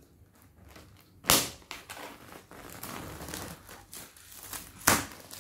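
Packaging being cut and pulled open by hand: rustling and crinkling throughout, with two short, sharp, loud rips, one just over a second in and one near the end.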